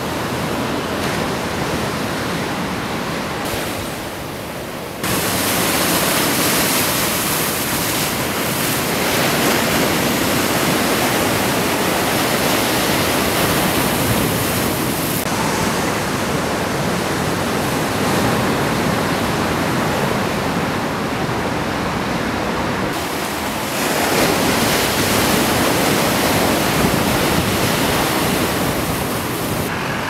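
Ocean surf: waves breaking and whitewater rushing, a steady wash of noise. It jumps abruptly louder about five seconds in and shifts in tone a couple more times.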